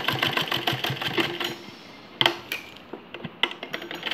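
Sewing machine stitching rickrack lace onto cotton fabric, a fast, even run of needle strokes that stops about a second and a half in. A few separate sharp clicks follow, and the stitching starts again in short runs near the end.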